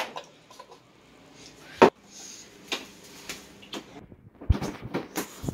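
Kitchen handling noise: scattered clicks and knocks, with one sharp knock about two seconds in and a couple of dull thumps near the end.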